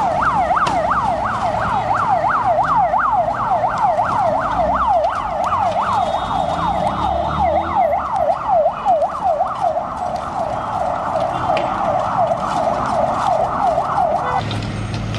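Emergency vehicle siren sounding in a fast yelp, sweeping up and down about three times a second, then cutting off shortly before the end.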